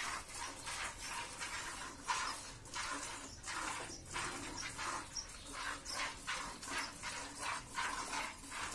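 Hand milking a cow: streams of milk squirt into a plastic bucket in a steady rhythm of short hissing strokes, about two a second.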